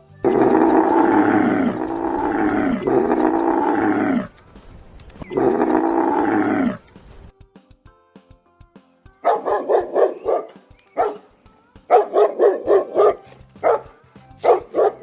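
Animal sound effects: four long drawn-out calls that rise and fall in pitch, the first three run together and the fourth after a short gap. About nine seconds in, a dog starts barking in quick runs of short yips, which continue in clusters.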